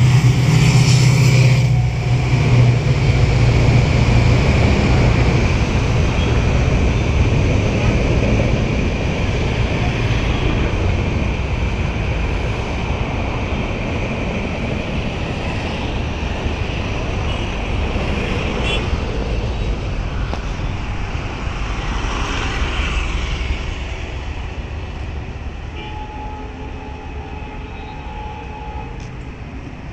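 EMD WDP-4 diesel locomotive's two-stroke V16 engine working hard as it accelerates past, its deep drone dropping away about two seconds in. Then passenger coaches roll by with a steady rumble and clatter of wheels on rails that slowly fades.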